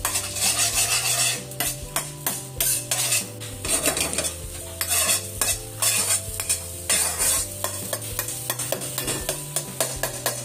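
Metal spatula scraping and knocking repeatedly against a stainless steel wok while scrambling eggs, with the eggs sizzling in hot olive oil underneath.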